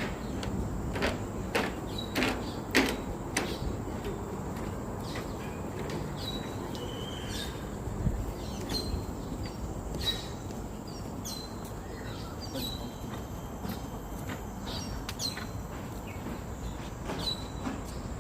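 Footsteps for the first few seconds, then repeated short bird chirps over a steady rustling outdoor noise.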